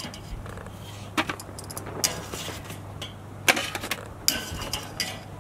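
Metal tongs clacking and clinking against the grill's wire grate and an aluminium foil pan as tortillas are lifted off: a handful of sharp metallic clicks spaced about a second apart, the loudest about three and a half seconds in with a short ring.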